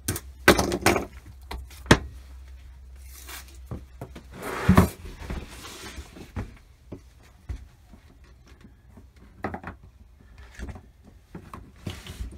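Snap-together vinyl plank flooring being handled and fitted: sharp knocks and clacks of planks against each other and the subfloor, the loudest cluster about half a second to two seconds in, with a longer scraping burst near five seconds and scattered knocks later as the pieces are pressed to snap together.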